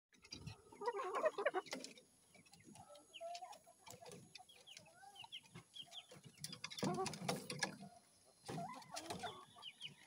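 Chickens clucking and squawking, in loud bunches about a second in and again around seven and nine seconds, with softer clucks between and scattered clicks.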